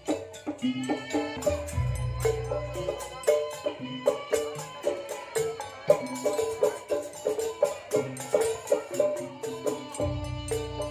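Traditional pencak silat accompaniment music: a quick, busy beat of drum and percussion strikes under a stepping melody of pitched notes.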